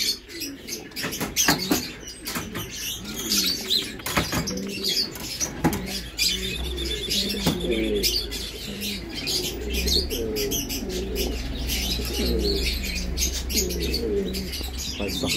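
Domestic pigeons in a cage cooing over and over, one low coo phrase after another, with high chirps from other birds and a few light clicks above them.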